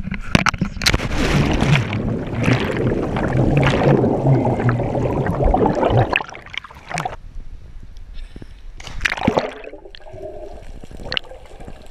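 A jump from a sea cliff into the ocean heard on a body-worn action camera: loud rushing noise through the drop and plunge that cuts off suddenly about six seconds in, then muffled underwater gurgling and bubbling, with a sharp splash of a plunge into the water heard from below about nine seconds in.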